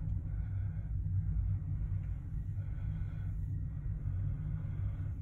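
Double-stack intermodal freight train rolling past: a steady low rumble, with a fainter higher sound that swells about once a second.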